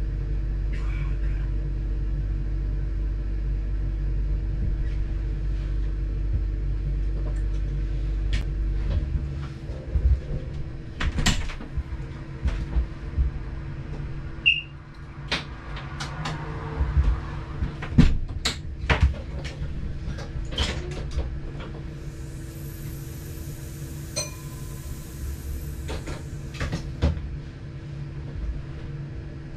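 Inside the cab of a diesel multiple unit under way: a steady low engine drone with a steady whine over it. About nine seconds in the drone drops away, as when the throttle is shut to coast, and a run of irregular clicks and knocks follows, such as wheels over rail joints and cab rattles. A short hiss comes about twenty-two seconds in.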